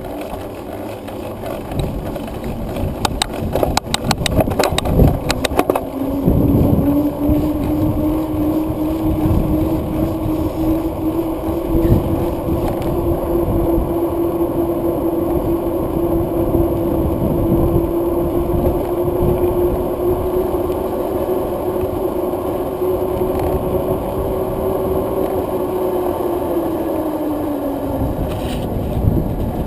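The vehicle carrying the camera moving along a road. Its motor hum rises in pitch as it gets going, holds steady, then falls near the end as it slows, over a rumble of tyres and wind. A quick run of clicks comes a few seconds in.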